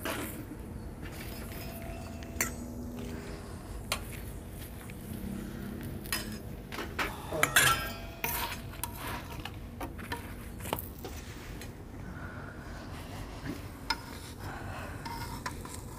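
Steel kitchenware clinking and scraping: a metal spatula working parathas on a griddle while steel bowls and plates are handled. Scattered clinks throughout, with a louder cluster of clatter about seven and a half seconds in.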